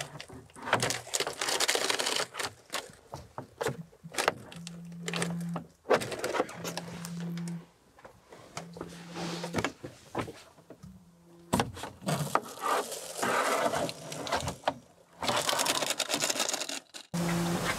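Pleated cab window blinds in a camper van being pulled across by hand: scattered clicks, plastic rattles and rubbing as the blinds slide in their frames. A low hum comes and goes a few times in the middle.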